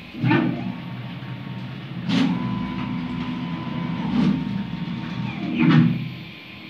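Home-made CNC router machine running, its motors surging about every two seconds with a steady high whine between the surges.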